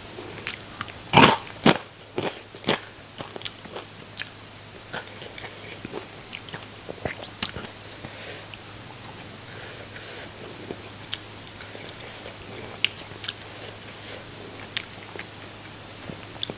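Close-miked biting and chewing of crisp deep-fried small sea fish: four loud crunches in quick succession from about a second in, then softer, scattered crunching as it is chewed.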